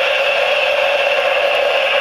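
Small electric motor spinning the rotor of a model tilt-rotor aircraft at a constant speed: a steady whir.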